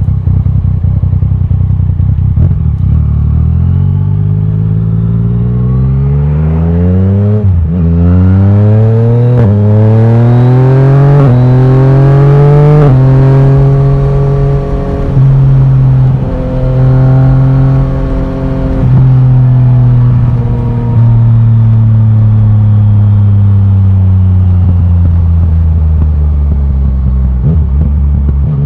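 Yamaha Tracer 900 GT's inline-three engine through a loud titanium Akrapovic exhaust, accelerating from low revs through four quick upshifts, the pitch climbing and dropping at each shift. It then cruises at steady, slowly falling revs with a few short throttle lifts.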